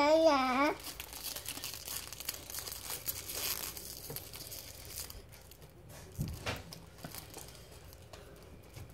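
A toddler's singing breaks off under a second in, followed by about five seconds of crinkling and rustling of something being handled, then fainter handling noises.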